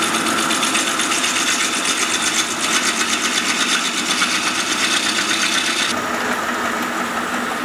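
Metal lathe running, a cutting tool turning down a spinning metal bar with a steady cutting hiss over the motor and gearing. About six seconds in the sound changes and turns a little duller as work switches to a drill bit in the tailstock chuck drilling into the end of the bar.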